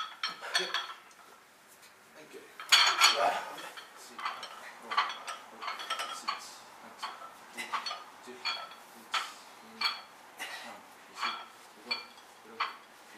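Plate-loaded barbell clinking during fast bench rows, a sharp metallic clink with a short ring on each rep, about one and a half to two a second. A louder metal clatter comes about three seconds in.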